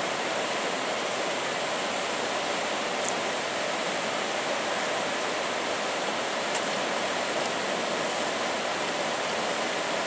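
Steady, even rushing noise with no pitch and no change in level, with two faint, very short high-pitched sounds about three and six and a half seconds in.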